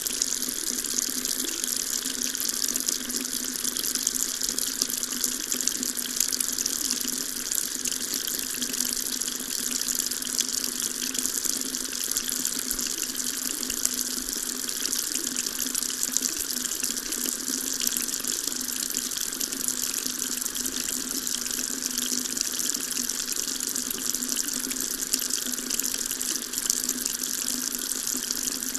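Water tap running steadily into a sink, an even continuous splashing.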